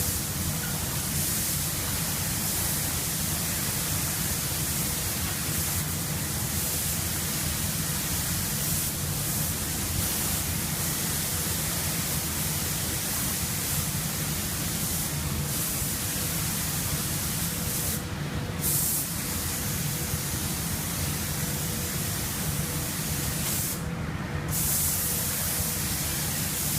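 Robotic paint spray gun hissing steadily as it atomizes paint with compressed air, the hiss briefly dropping out twice near the end as the gun cuts off between passes, over a faint steady hum.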